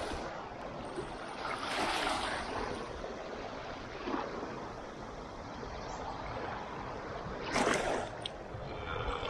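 Small waves washing over a shallow rocky reef flat, a steady wash of water that swells twice, about two seconds in and again near the end.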